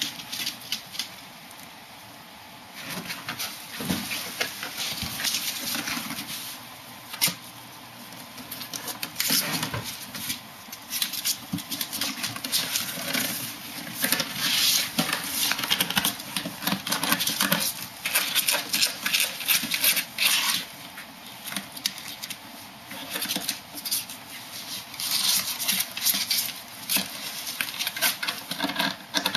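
Kitten and ferrets scrabbling and tussling in and around a cardboard box on a wooden floor: claws skittering on the boards and the cardboard scraping and rustling, in irregular bursts of rapid scratchy clicks that start a few seconds in.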